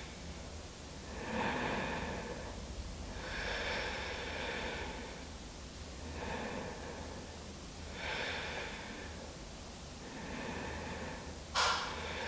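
A woman's slow, audible breathing while holding a seated yoga pose: soft hissy inhales and exhales, one about every two seconds. A brief sharp noise sounds near the end.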